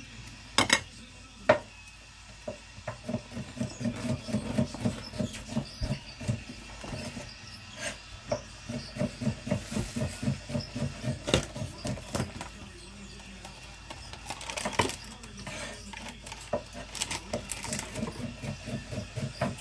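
A knife sawing back and forth through the crusty loaf of coconut bake on a plate, in a steady rhythm of strokes, with a few sharp clicks as the blade knocks against the plate.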